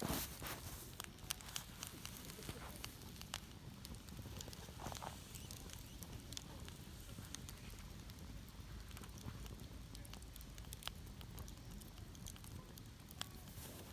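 Wood campfire crackling: irregular sharp pops and snaps over the low, steady noise of the flames.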